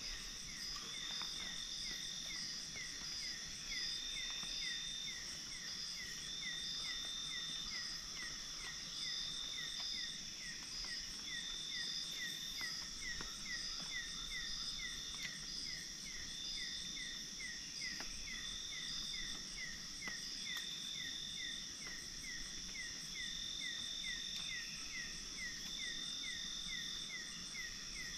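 Night chorus of insects such as crickets: a steady high-pitched trill, with a short chirp repeating about twice a second and a longer call about every two seconds.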